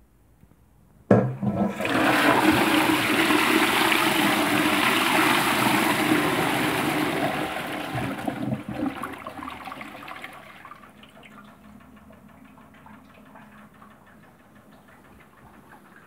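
Twyfords Unitas pedestal toilet flushing a bowlful of water balloons away: the rush of water starts suddenly about a second in and stays loud for about seven seconds. It then tails off to a much quieter steady run of water.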